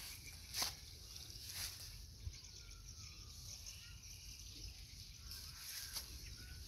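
Water spinach stems snapped off by hand, two short crisp snaps in the first couple of seconds, followed by soft rustling of grass and leaves as the shoots are handled.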